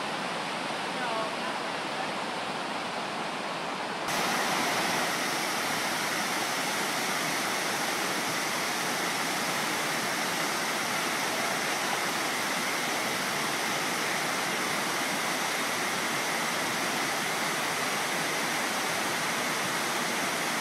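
Waterfall cascading over rock, a steady rush of falling water. About four seconds in it becomes louder and fuller, heard from close to the cascade.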